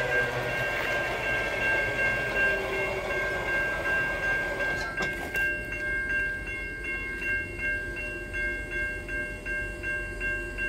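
Level-crossing warning bell ringing while the crossing gate arm lowers, with a lower hum falling in pitch as it goes down. There is a clunk about five seconds in, after which the bell rings in even pulses about three a second.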